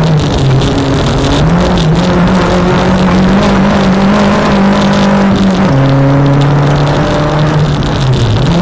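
Renault Clio 1.8 16v four-cylinder engine pulling hard under full throttle, heard inside the stripped cabin, its pitch held high, then dropping sharply about six seconds in as it shifts up and climbing again. Loose dirt and stones rattle against the underside throughout.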